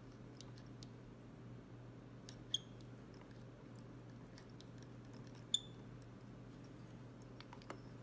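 Faint handling sounds of fly tying at the vise as a schlappen feather collar is wrapped: a few soft ticks and two sharper clicks with a brief metallic ring, one about two and a half seconds in and another three seconds later, over a low steady hum.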